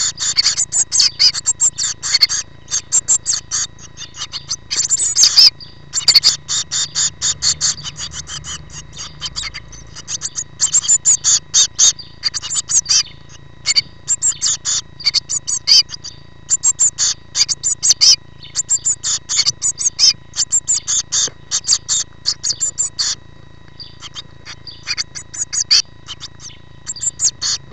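Blue tit nestlings close to fledging, begging from inside the nest box: rapid, high-pitched chirps in bouts, with a loud burst about five seconds in. A faint steady whine runs underneath.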